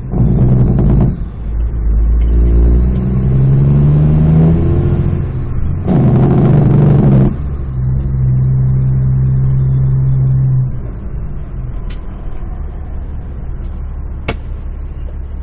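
Caterpillar 3406E diesel of a Kenworth W900L heard inside the cab, pulling under load, its pitch climbing and falling back twice, with a high whistle rising and falling over it. The engine eases off about two-thirds in, and two sharp clicks come near the end.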